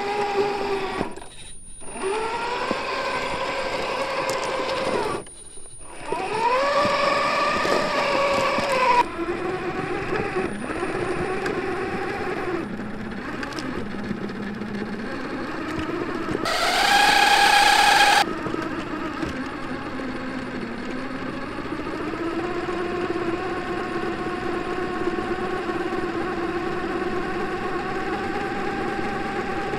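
Electric motors and gear drivetrains of 1/10-scale RC crawlers whining under throttle on a climb, the pitch rising as they spool up and settling as they crawl. The whine drops out briefly twice near the start, and a louder, higher whine comes a little past halfway and lasts about a second and a half.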